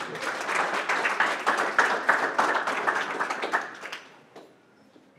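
A small lecture audience applauding at the end of a talk, with many hands clapping together. The applause dies away about four seconds in.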